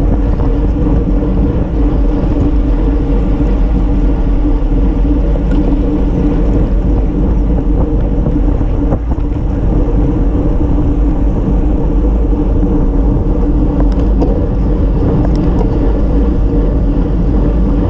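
Steady wind rushing over the microphone of a camera mounted on a road bike at speed, mixed with the rumble and hum of the tyres on asphalt.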